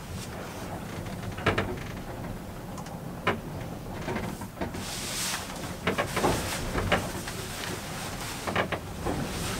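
Scattered clicks and knocks of things being handled and shifted in a sailboat's cabin, over a steady low rumble, with a brief hiss about five seconds in.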